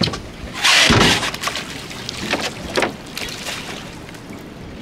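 Water and wind noise around a small fishing boat, with one loud rushing splash about a second in and a few short knocks afterwards.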